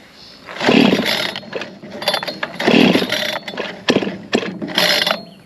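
Boshent 52cc two-stroke chainsaw being pull-started cold on its spring-assist recoil starter, choke on: three pulls about two seconds apart, the engine turning over without catching yet.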